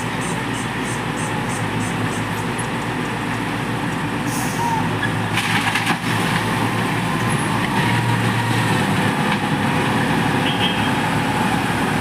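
Heavy diesel engines of a tipper truck and asphalt paver finisher running steadily, with short bursts of hissing about halfway through.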